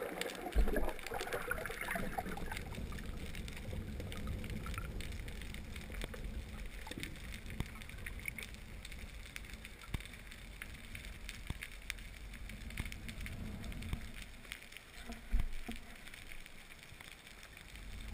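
Underwater water noise picked up by a diving camera: a steady low rumble of water moving against the housing, with scattered faint clicks and crackles. Two low thuds stand out, one near the start and one about fifteen seconds in.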